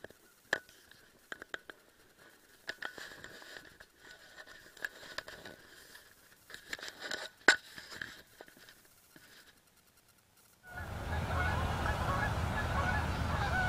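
Scattered clicks, rustles and brushing noises from hunters moving and handling gear in the dark. About eleven seconds in it cuts sharply to a steady outdoor background of many birds chirping over a low wind rumble.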